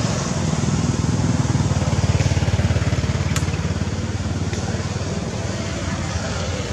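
A small engine running close by, a rapid low chugging that swells a couple of seconds in and then eases, with one sharp click midway.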